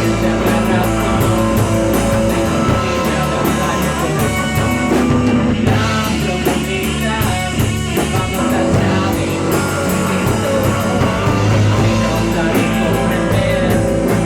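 Rock band playing their song in the studio, with electric guitar and drum kit, heard as room sound rather than a mixed recording.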